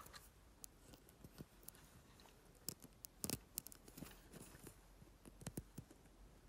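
Faint, irregular clicks and light taps of handling, a dozen or so scattered through, over a low steady hum.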